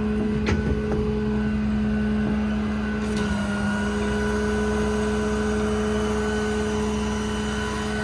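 Ram 5500 service truck's Cummins turbo diesel running steadily with a steady whine over it. There is a click just after the start, and a brighter hiss comes in about three seconds in.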